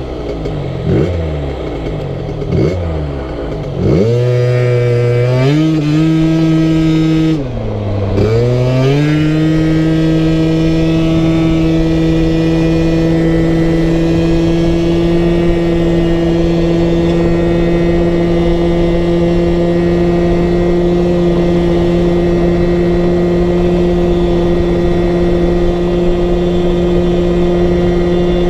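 Scooter's TPR 86cc big-bore engine under throttle on a road test, fitted with 9.25 g variator roller weights. It blips and falls away several times, climbs sharply about four seconds in, dips and recovers near eight seconds, then holds one steady high pitch. The CVT keeps the revs constant while road speed builds.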